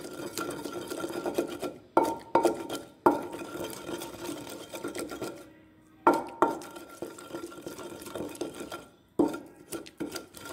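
Neem-wood pestle (ghota) stirring and scraping masala paste in a clay mortar (kundi). The pestle knocks sharply against the clay bowl six times, in irregular pairs, and the bowl rings after each knock.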